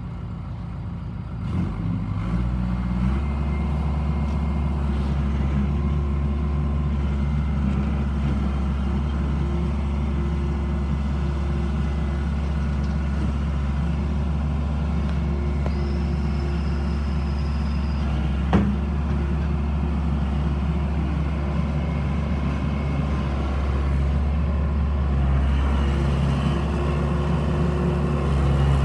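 Case 1840 skid steer loader's diesel engine speeding up over the first few seconds, then running steadily at a constant speed. There is a single sharp click about two-thirds of the way through, and the engine gets a little louder near the end.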